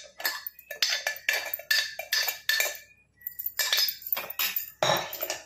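Stainless-steel kitchenware clinking and knocking: a quick series of metal-on-metal clinks as steel bowls and utensils are handled, with a brief metallic ring about three seconds in.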